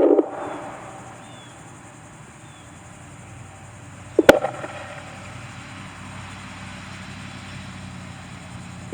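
Whelen WPS-4004 electronic siren's steady tone cutting off just after the start, leaving a quiet steady background with a faint low hum. About four seconds in come a single sharp click and a brief burst of tone from the siren, and near the end the siren starts sounding again.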